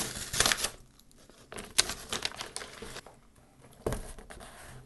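Brown paper wrapping on a cardboard box being torn and crinkled in several short rips and rustles, with a single knock about four seconds in.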